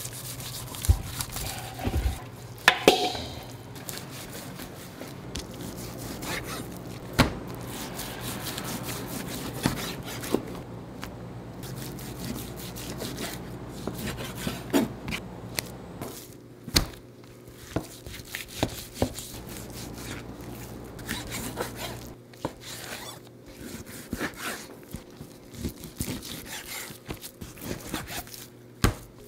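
Food preparation in a burger-shop kitchen: irregular knocks, taps and scrapes of utensils and food on boards and dishes, over a steady low hum of kitchen equipment.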